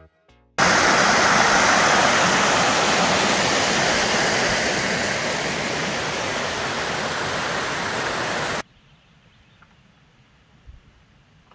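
Steady loud rush of fast-flowing water. It starts abruptly, eases off slightly, and cuts off sharply after about eight seconds, leaving a quiet background with a couple of faint ticks.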